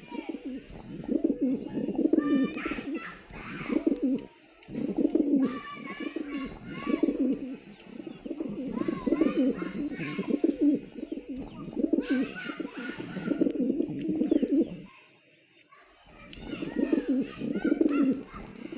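Several pigeons cooing almost without pause, with higher chirping mixed in; the cooing drops out briefly about fifteen seconds in.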